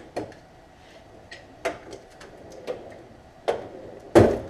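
A handful of separate metal clanks and knocks of tools being handled, as when rummaging through a toolbox drawer; the loudest comes near the end.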